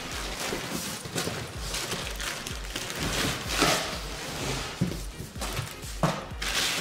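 Cardboard box flaps and plastic wrapping rustling and scraping as a wrapped seagrass basket is pulled out of its box. Background music with a steady low beat runs underneath.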